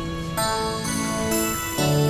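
Background film music of held chords, changing twice.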